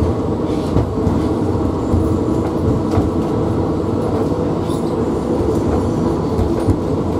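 London Metropolitan Electric Tramways tramcar 331 running along the track, heard from inside the saloon: a steady low rumble and hum with a few light clicks.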